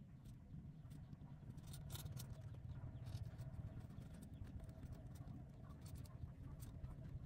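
Week-old kittens suckling at their mother: faint, scattered little clicks and smacks, over a low steady rumble.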